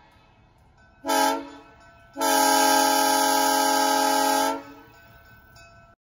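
Diesel locomotive's air horn sounding a short blast about a second in, then a long steady blast of a few seconds, each a chord of several tones.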